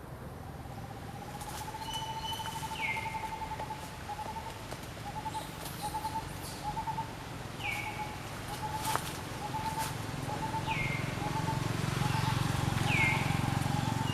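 Birds calling. One gives a long wavering note and then a string of short notes at the same middling pitch. Another repeats a short, high call that falls in pitch, four times, over a low background hum.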